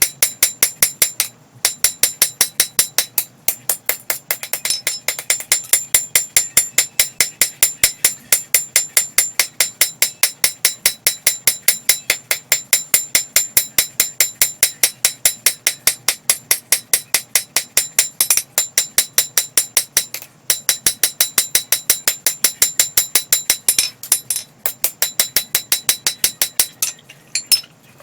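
Hand hammer striking red-hot coil-spring steel on an anvil in a fast, even rhythm, each blow ringing, with a few short pauses. This is blade shaping during hand forging.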